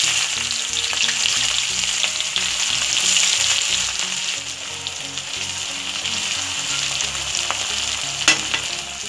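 Chopped onion sizzling and frying in hot oil in a kadhai. The sizzle starts suddenly as the onion goes in and keeps going while a spatula stirs it. There is a sharp knock near the end.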